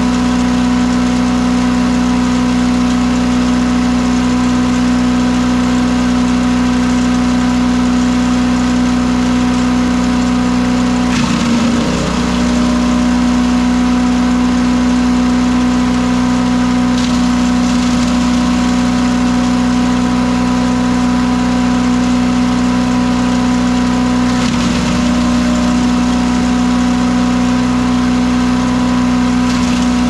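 Harbor Freight chipper shredder's Predator 212cc single-cylinder four-stroke engine running steadily while shredding cardboard. The engine briefly dips in pitch about a third of the way in, and more lightly later on, as cardboard goes through the cutters.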